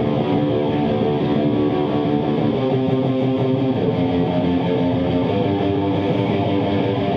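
Electric guitar music played loud, with chords and notes held and ringing on.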